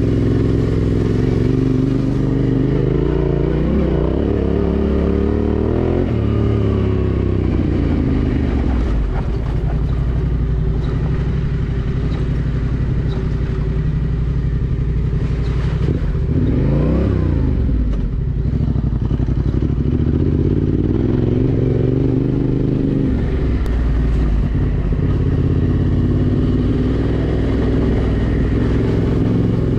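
Yamaha Ténéré 700's parallel-twin engine running under way, its pitch climbing and dropping with throttle and gear changes, with a quick sharp rev up and back down about halfway through.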